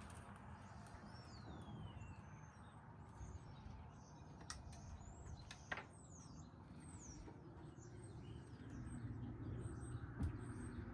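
Faint bird chirps, short high sweeping calls scattered through, over a low rumbling background with a few sharp clicks. A low steady hum grows louder over the last few seconds.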